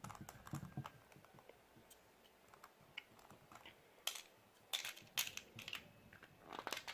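Small metal watch-repair tools being handled: faint, irregular clicks and taps, with a few sharper clicks about four to five seconds in and again near the end.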